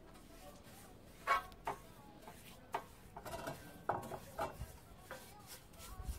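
Several light clinks and knocks on a copper frying pan as it is handled, some ringing briefly, the loudest about a second in.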